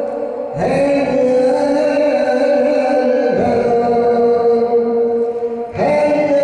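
A man chanting a Muslim prayer in long held notes that bend slightly, with a new phrase starting about half a second in, another about three and a half seconds in, and a third near the end.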